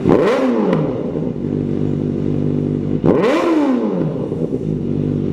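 Kawasaki ZX-4RR's inline-four engine, breathing through an aftermarket Orion VMAX Racing muffler, idling and blipped twice about three seconds apart. On each blip the revs shoot up, then fall back to idle over about a second.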